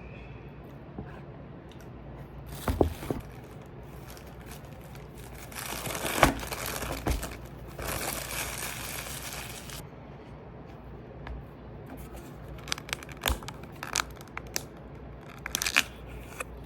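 Close-up handling sounds in a small room: a couple of knocks, then several seconds of crinkling and tearing of wrapping, then scattered clicks and taps near the end.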